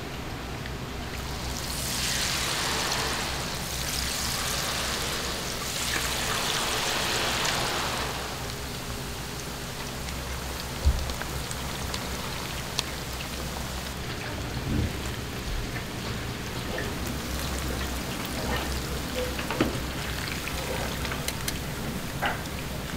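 Flour-coated leaves frying in hot oil, a sizzle that swells about two seconds in and eases back by about eight seconds, then carries on lower with a few light clicks.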